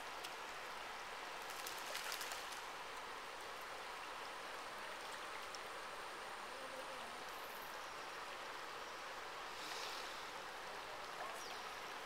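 River water flowing over rock ledges in a steady rush, with brief louder splashy bursts about two seconds in and again near ten seconds.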